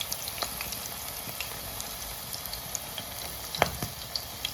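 Pakoras frying in hot oil: a steady sizzle with scattered pops and crackles. One louder knock comes about three and a half seconds in.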